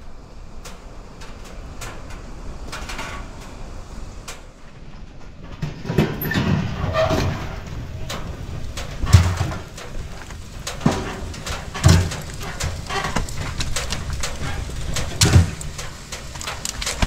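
Burning logs crackling and popping in a wood-burning tent stove. The crackles start about six seconds in, with a few dull low thumps among them.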